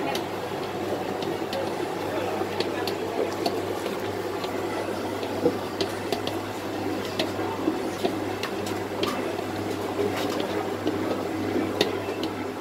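Commercial planetary stand mixer running, its flat beater churning bread dough in a stainless steel bowl: a steady motor hum with scattered light clicks.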